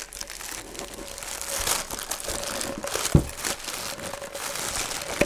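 White packing paper crumpling and crinkling as a bowl is unwrapped by hand, with a single dull knock about three seconds in.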